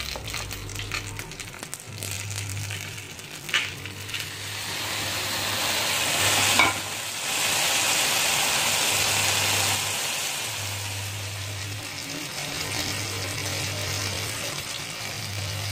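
Chicken in gravy sizzling on a hot sizzler plate as it is piled on, the hiss swelling about four seconds in, loudest in the middle and then easing. A couple of sharp clinks, at about three and a half and six and a half seconds.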